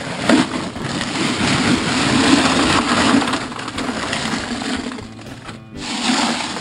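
Crushed gravel pouring out of a bag onto perforated drain pipe in a trench. The stones make a continuous rushing rattle that stops briefly about five and a half seconds in and then starts again.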